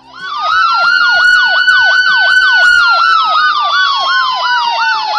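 Ambulance siren with a fast warble of about four falling sweeps a second over a long tone that rises at the start and sinks steadily in pitch through the second half.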